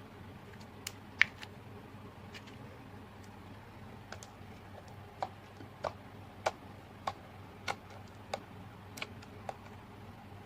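Slime being pressed and squeezed by hand, giving sharp clicking pops: one loud pop about a second in, then a steady run of about eight clicks a little over half a second apart in the second half.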